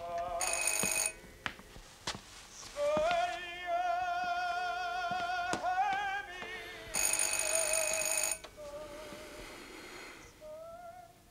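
An electric doorbell rings twice, a short ring near the start and a longer one about seven seconds in, over operatic singing with a strong vibrato.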